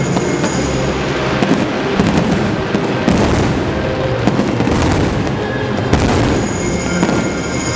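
Fireworks display: many shells bursting in rapid, overlapping bangs that run together into an almost unbroken din.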